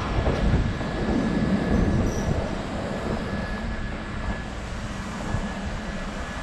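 Kintetsu 12410-series limited express electric train pulling away from the platform, running slowly with a low rumble. A thin, steady high tone runs from about a second and a half in to about four and a half seconds in.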